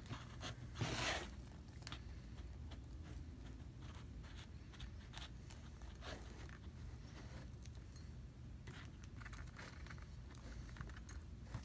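Faint handling noise from a painted foam-clay half mask and its straps being turned over and moved on a cutting mat: a louder rustle about a second in, then scattered small scrapes and clicks over a low room hum.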